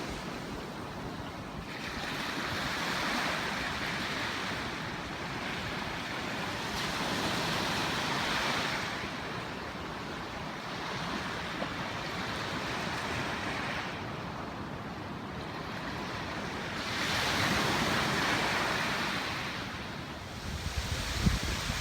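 Ocean surf breaking and washing up a beach, the rush of water swelling and fading every few seconds. Near the end, wind gusts buffet the microphone.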